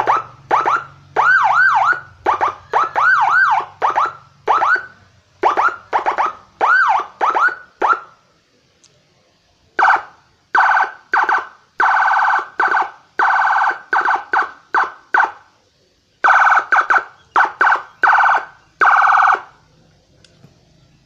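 TOA ZH-610S siren speaker driven by a six-tone siren module, sounded in short blasts. First come quick rising-and-falling sweeps. After a pause of about two seconds come longer, steadier warbling tones, with the blasts stopping a little before the end.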